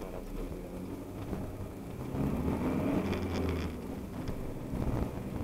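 Car engine and road noise as the car pulls away from a standstill at traffic lights and accelerates, the rumble growing louder about two seconds in.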